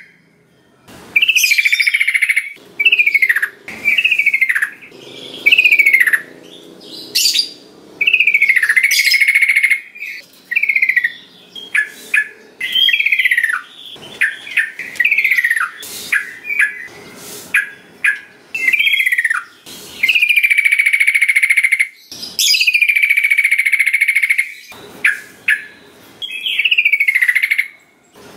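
Yellow-vented bulbul (trucukan) calling: a long series of short chirps that drop in pitch, broken by a few longer held notes, with brief pauses between phrases.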